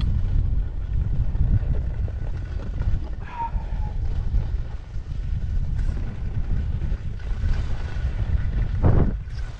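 Wind buffeting a GoPro camera's microphone, a steady low rumble. A short high tone sounds about three seconds in, and a louder thump comes near the end.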